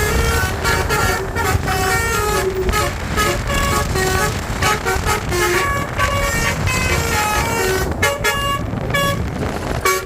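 Basuri multi-tone 'telolet' bus horn playing a tune in quick, stepping notes over a low steady rumble.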